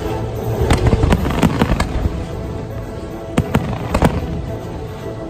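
Fireworks shells bursting in rapid succession with sharp bangs and crackles, a dense flurry in the first two seconds and another cluster a little past halfway, over the show's music.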